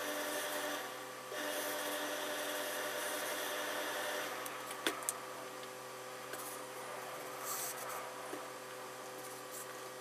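Tailor's pressing iron working over suit-trouser fabric: two stretches of hissing and rubbing in the first four seconds, then quieter handling of the cloth with a sharp click about five seconds in.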